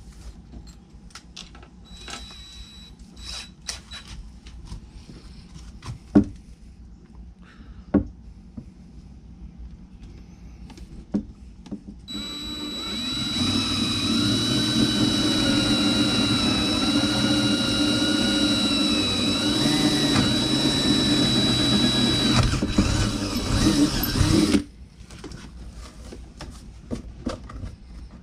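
Cordless drill with a quarter-inch bit boring through a boat console. About twelve seconds in, the motor starts and runs steadily for about twelve seconds with a whine that wavers slightly in pitch, then cuts off sharply. Before it there are a few clicks and knocks of handling.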